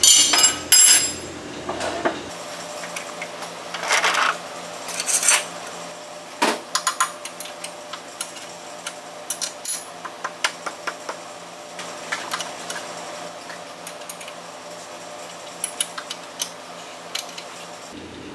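Metal clinks, taps and scrapes as a metal speed square is set against a band saw blade and its vise jaw to square the blade to the vise. Louder knocks come in the first second or so and again from about four to six and a half seconds in, then lighter scattered ticks.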